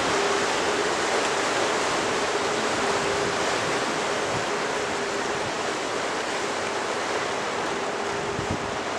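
Steady rushing of wind and water from a boat under way on a river, with a faint steady hum underneath.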